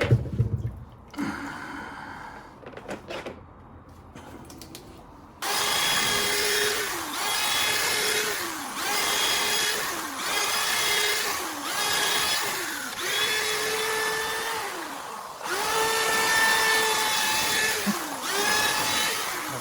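Electric drain-cleaning machine spinning its cable in a clogged kitchen drain line. It starts abruptly about five seconds in, then runs in repeated surges of a little over a second each, its pitch dipping at the end of each one as the cable is loaded and released.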